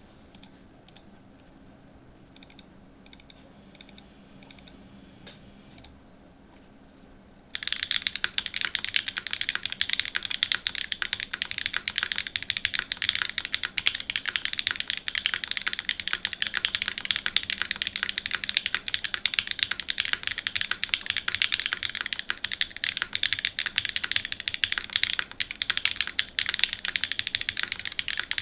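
Typing on a Geonworks F1-8X V2 mechanical keyboard with an aluminium plate, lubed OG BCP linear switches (Cherry top, NK Cream stem, H1 bottom) and GMK keycaps. A few faint scattered key clicks at first, then about seven seconds in, fast continuous typing starts and keeps going.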